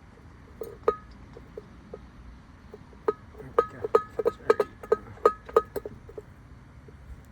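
Loose steel lug nuts and hardware clinking against metal: a scattering of sharp metallic clinks, each with a short ring, coming thick and fast about three to six seconds in.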